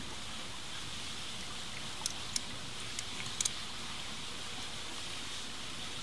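Steady rush of a creek running over rocks, with a few small clicks of handling about two and three seconds in.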